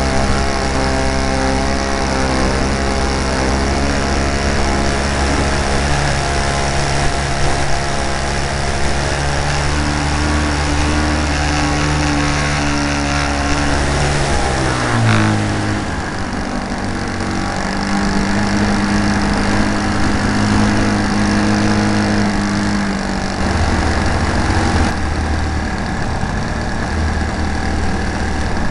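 Engine of a Great Planes Slow Poke RC model airplane running in flight, heard from a camera mounted on the plane. About halfway through its pitch drops quickly as it slows, then it holds steady at the lower speed.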